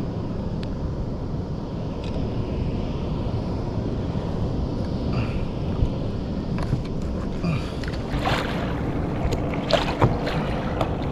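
Wind buffeting the microphone over sea water moving around a fishing kayak, a steady low rush. In the second half come a few sharp knocks and clicks from gear being handled on the kayak.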